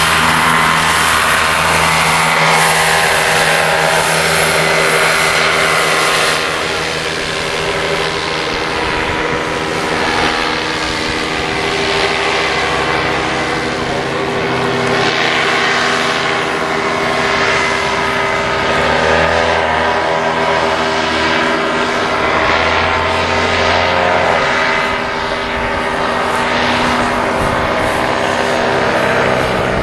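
Paramotor engine and propeller running loudly and steadily, with the engine note shifting in pitch with throttle partway through.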